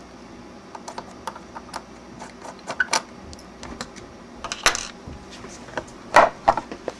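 Scattered light clicks and taps of small screws and the meter's hard black case being handled on a wooden workbench as the case is taken apart, with louder knocks near 3 s, near 5 s and just after 6 s.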